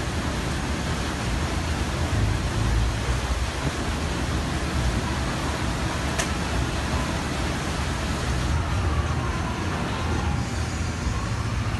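The stern paddle wheel of the steamboat Natchez turning and churning the river water, a steady rushing wash with a low rumble underneath. A single sharp click about six seconds in.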